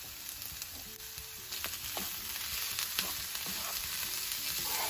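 Chopped shallots, shiitake mushrooms, salted turnip and dried shrimp sizzling over moderate heat in a nonstick frying pan. A wooden spoon scrapes and taps the pan as the stirring picks up about a second and a half in.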